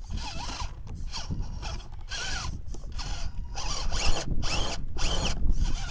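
RC rock crawler's electric motor and gear train whining in a quick series of short throttle bursts, the pitch rising and falling with each burst as the truck crawls over rocks.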